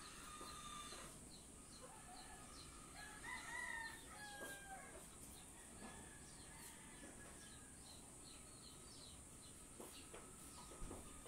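A rooster crowing faintly once, about three seconds in and lasting about two seconds, over a steady high hum and small repeated chirps.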